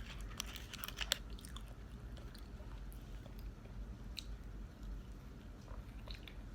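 A person chewing food close to the microphone: a quick run of wet mouth clicks and smacks in the first second and a half, then slower, scattered smacks.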